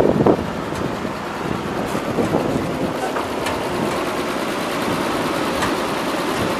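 Dodge WC62 6x6 truck's 230 cubic-inch flathead straight-six idling steadily, heard close at the open engine bay.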